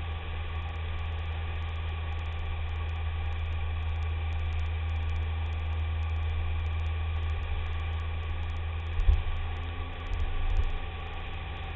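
BMW K1300S motorcycle's inline-four engine running steadily at cruising speed, under a steady low rumble of wind and road noise on the fairing-mounted camera. Twice near the end a brief louder low thump breaks through.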